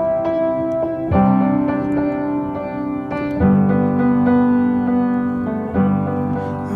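Background music: sustained piano chords, changing about a second in and again halfway through.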